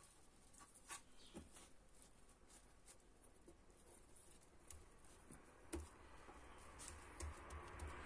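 Faint soft pats and rubbing of hands smoothing cement-soaked cloth onto a metal washing-machine spin drum, with a few small clicks. A low rumble begins to build near the end.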